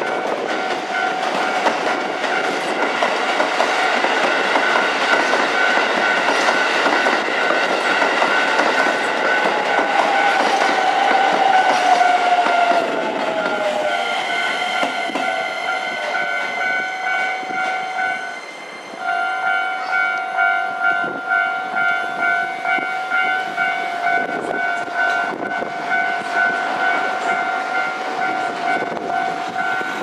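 Japanese railway level-crossing warning bell ringing steadily while a Shin-Keisei electric train runs in over the points. About a third of the way in, a whine from the train falls in pitch as it slows. After a short break the crossing bell carries on with a regular pulse.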